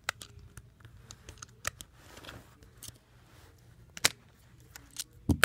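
Fingers handling a Kyocera phone's plastic casing: a scatter of sharp clicks and taps, unevenly spaced, the loudest about four seconds in and a duller knock near the end.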